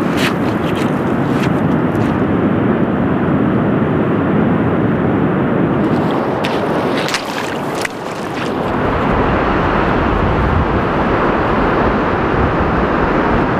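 Steady rush of sea surf and wind on an open beach, with crunching footsteps on pebbles fading in the first second or two and a few more crunches around seven seconds in. After a break about eight seconds in, a deeper wind rumble on the microphone joins the surf.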